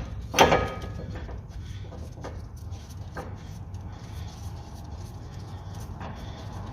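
Metal hand tools clanking on the rear brake caliper carrier while its bolts are undone: one sharp metallic clank with brief ringing about half a second in, then a few faint knocks and clicks over a low hum.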